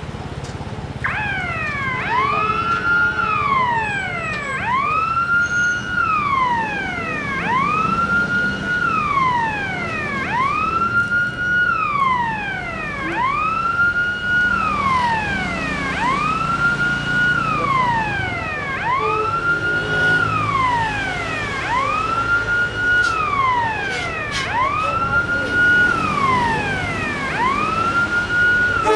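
A wailing siren, rising and falling about every two seconds, over the low rumble of an approaching GE U18C diesel locomotive.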